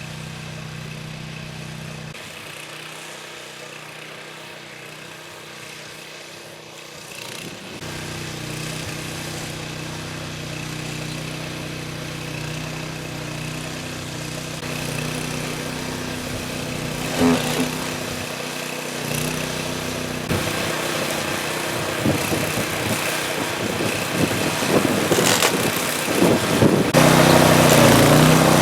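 Kyoritsu Wing Mower AZ646 walk-behind levee mower running steadily while it cuts grass. It grows louder in the second half, with scattered knocks and clatter.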